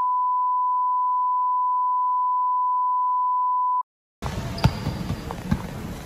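A steady, high, single-pitch beep tone, edited in over a title card, held for nearly four seconds and cutting off abruptly. After a brief silence, a basketball game in a gym starts up, with the ball bouncing.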